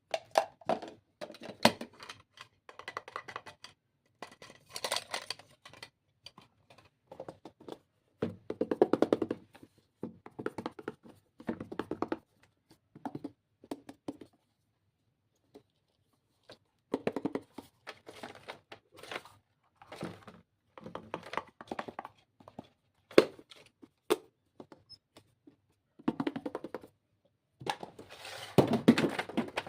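Stationery and its packaging being handled: irregular clicks, taps and rustles, with a pause of about two seconds midway.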